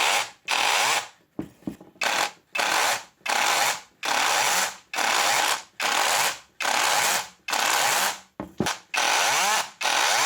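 Parkside PBHAP 12 A1 12-volt cordless hammer drill run in short bursts, its trigger pulled and released over and over, about ten times. Each burst spins up loud and winds down with a falling whine, with a couple of quick blips in between.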